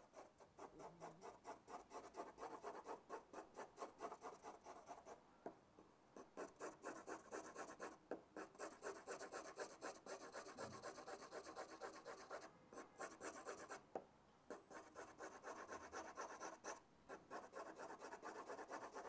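Graphite pencil held on the side of its lead, hatching close parallel lines on drawing paper: faint, quick back-and-forth scratching, several strokes a second, with a few brief pauses.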